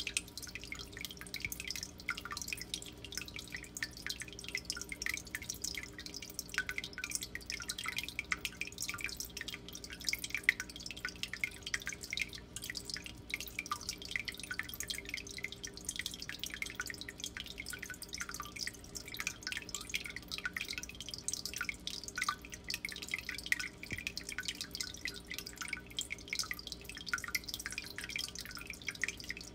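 Water trickling and dripping in a turtle aquarium: a dense, irregular patter of small drips and splashes, with one sharper splash about ten seconds in, over a low steady hum.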